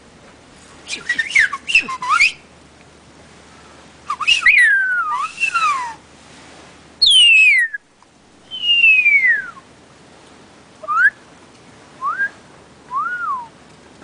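A lory, a red-and-green parrot, giving a string of loud whistled calls: quick sliding notes, then several falling whistles, and three short notes near the end, the last one rising and falling.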